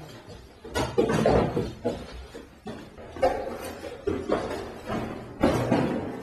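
A series of about five loud, sudden hits at uneven intervals, each ringing out and dying away over about a second.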